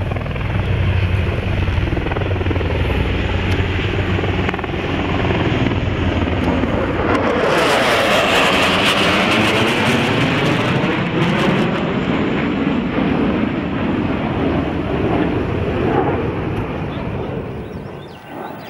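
Lockheed HC-130J Hercules four-engine turboprop and two Sikorsky HH-60G Pave Hawk helicopters flying past together: a loud, continuous mix of propeller drone and rotor noise. It swells to its loudest and most hissing about halfway through, then eases off.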